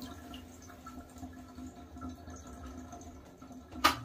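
Faint water sounds from a bathtub filled with water, with small drips and trickles, then a single sharp knock near the end.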